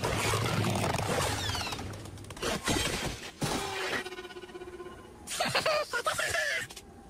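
Cartoon slapstick sound effects: a noisy crash with shattering and breaking, a few knocks, then a held pitched cry, and a cartoon lizard's excited squeals near the end.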